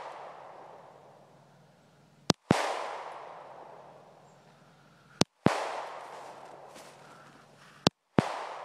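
Glock pistol firing three single shots about three seconds apart, each a sharp crack that dies away in an echo lasting about two seconds.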